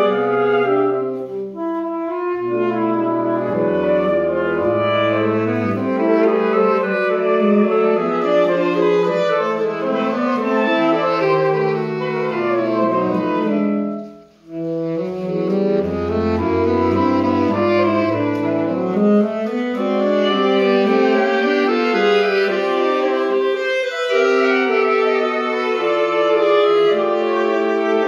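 Saxophone quartet playing a classical-style piece: several voices hold sustained chords over a moving bass line. The whole ensemble breaks off briefly about halfway through, then comes back in.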